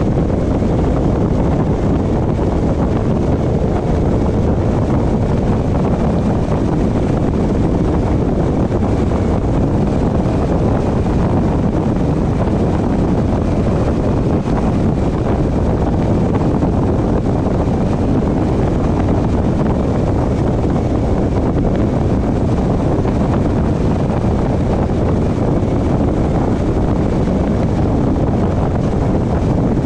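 Steady road and wind noise of a car driving, a constant low rumble with wind buffeting the microphone.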